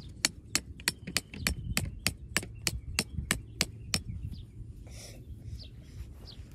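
Hammer driving a tent peg into the ground with quick, evenly spaced strikes, about three a second, stopping about four seconds in.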